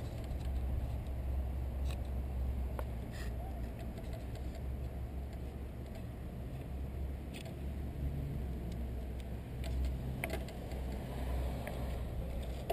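Steady low outdoor rumble with a few faint, light clicks and taps from a wooden plaque and a marking pen being handled against a wooden bench.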